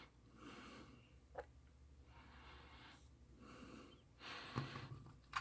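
Faint, slow breathing close to the microphone, with a single soft click about a second and a half in.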